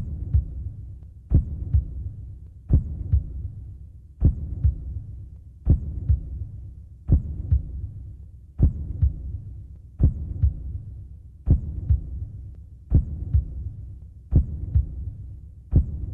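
Slow heartbeat sound effect: low double thumps, a strong beat then a lighter one, repeating about every second and a half over a low humming rumble.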